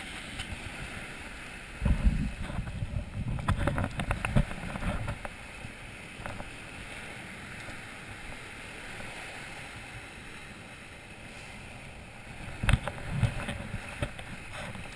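Surf washing over the shore, a steady hiss of breaking waves, with bursts of low rumbling and knocking on the microphone about two to five seconds in and again near the end.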